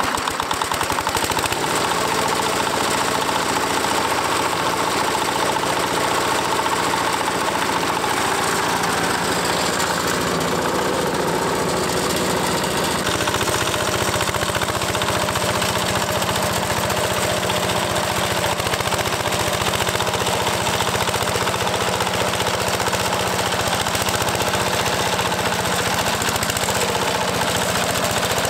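Single-cylinder diesel engine of an 8-horsepower heavy walk-behind tractor running with a steady knocking beat, driving its rear rotary tiller through rooty soil.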